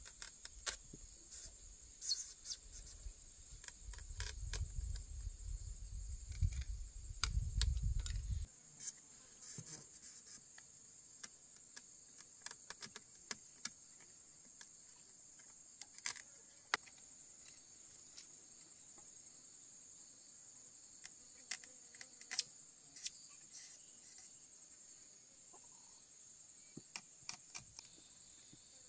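Steady high-pitched insect chirring, with scattered light clicks and taps. A low rumble for the first eight seconds or so cuts off suddenly.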